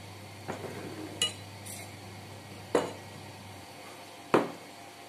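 Spoons clinking and scraping against ceramic plates during a meal: a handful of short, sharp clinks, the loudest about four seconds in, over a faint low hum.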